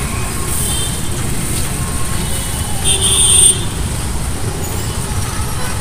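Steady low rumble of road traffic, with a brief high-pitched tone about three seconds in.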